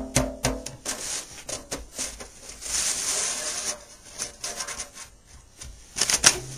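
A hand rubbing and pressing on a banjo head through a cloth, with a few light knocks near the start and again near the end, and a stretch of rubbing hiss in the middle. The pressing works puckers out of the skin as it is drawn tight.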